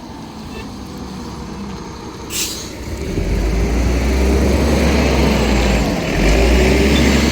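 Vintage bus's diesel engine running and growing louder from about three seconds in as it moves off or draws near, after a short hiss of air from the brakes. The engine note dips briefly about six seconds in, then picks up again.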